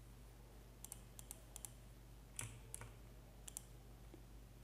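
Faint, scattered clicks from computer mouse and keyboard use, several in quick pairs, over a low steady hum.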